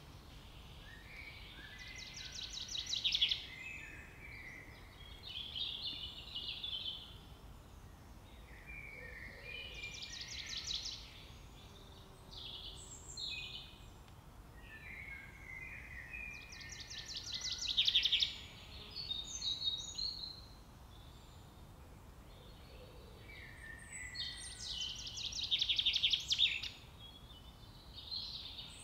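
Songbirds singing: one bird repeats a short song ending in a fast, rattling trill about every seven or eight seconds, with shorter chirps and phrases in between. A steady low background rumble sits under it.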